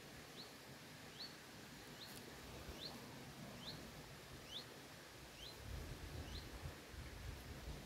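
A small bird calling, one short high chirp repeated about every second, faint over a quiet outdoor background. A low rumble on the microphone joins near the end.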